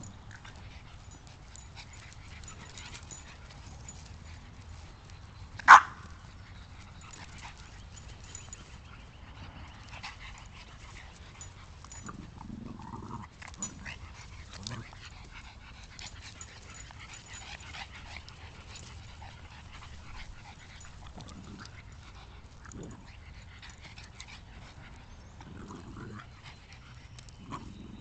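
Small dogs play-wrestling, with soft scattered yips and scuffling sounds. About six seconds in, one short, loud yip.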